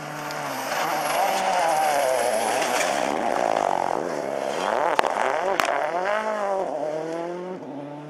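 Rally car engine at high revs as it nears and passes, its note rising and falling through gear changes while it brakes for a tight corner and accelerates away. Two sharp cracks come about five seconds in.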